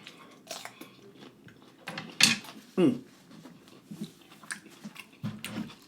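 Close-miked eating sounds: wet chewing and lip-smacking clicks, with a louder smack about two seconds in and a short closed-mouth hum near the end.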